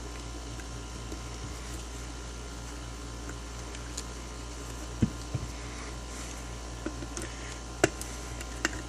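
Steady low background hum with a few light clicks and taps of a plastic multimeter being handled, the sharpest about five seconds in and again near eight seconds.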